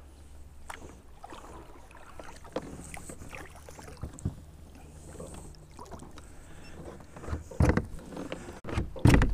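Water sloshing and knocks against the hull of an Old Town Predator MX fishing kayak while a hooked largemouth bass is played in out of the weeds. Scattered small knocks, then a few louder thumps and splashes near the end.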